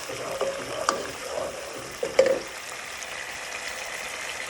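Onion paste and whole spices frying in oil in a pan with a steady sizzle, while a spoon stirs, knocking and scraping against the pan about one and two seconds in. The masala is being fried until the oil separates.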